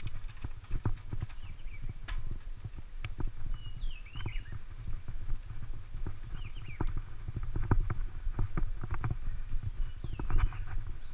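A bicycle rattling and knocking irregularly as it rides over a rough dirt road, over a steady low rumble of wind and road noise on the microphone.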